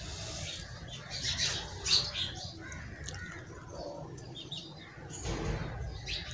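Birds calling in the background, with short high chirps and squawks about one to two seconds in and a few more later. A brief muffled rustle comes about five seconds in.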